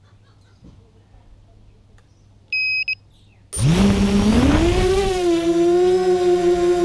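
Quanum Trifecta mini tricopter: two short electronic beeps, then about halfway through its three motors spin up with a sudden rising whine that settles into a steady hum as it lifts off.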